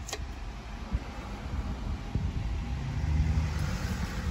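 Road traffic passing, heard from inside a parked campervan: a low rumble that swells over the last couple of seconds. There is a short click at the very start.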